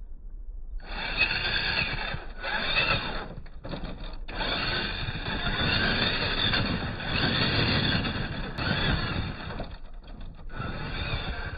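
Electric motor and gear drive of a 1/10-scale RC rock crawler whining in several steady tones as it crawls over rocks. It stops and starts with the throttle, with short breaks about two and a half seconds in, near four seconds and near ten seconds.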